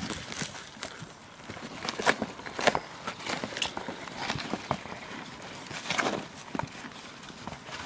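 Sheep stepping on grass and nosing into a cardboard box of fruit and vegetables: scattered rustles and crisp clicks.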